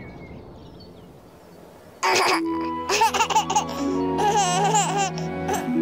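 A baby giggling and laughing in short repeated bursts over soft, sustained background music. The laughter starts suddenly about two seconds in.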